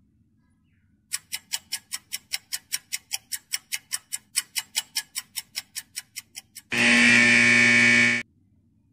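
Quiz countdown-timer sound effect: rapid clock ticks, about five a second, for five or six seconds, then a loud buzzer for about a second and a half that cuts off suddenly, marking time up.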